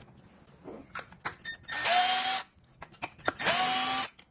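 Cordless Milwaukee power screwdriver running in two short bursts, each just under a second, with the motor pitch rising as it spins up. It is driving out the screws that hold a small plastic piece on an electric scooter's rear fork. Small clicks of the bit and screws sound between the bursts.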